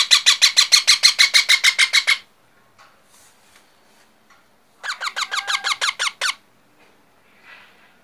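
Baby parrot's rapid, harsh repeated calls, about eight a second, in a burst of about two seconds, then after a pause a second burst of about a second and a half.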